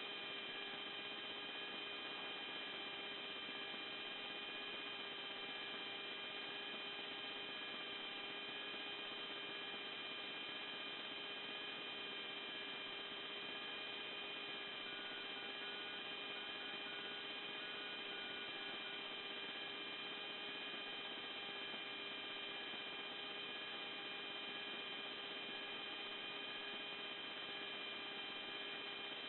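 Steady electrical hum on an F-16's cockpit radio and intercom audio channel between transmissions: an even drone made of several fixed tones. About halfway through, a faint short tone beeps on and off a few times.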